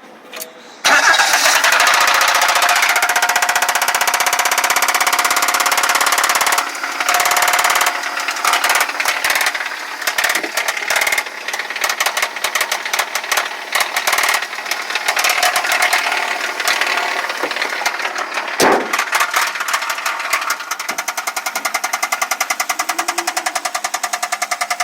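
An engine starts about a second in and runs loudly and unevenly. Near the end it settles into an even, rapid knocking, the rod knock it is filmed for: a sign of a worn connecting-rod bearing.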